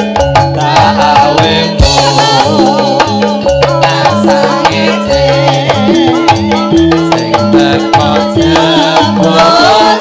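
Live campursari music: the band plays a steady bass-and-drum groove with rattling percussion and a wavering melody line over it, and singers' voices come in at times.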